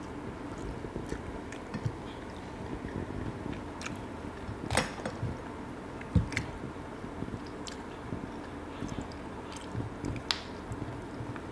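Chewing, with scattered sharp crackles of cooked spiny lobster shell being pried apart by hand; the loudest cracks come about five, six and ten seconds in.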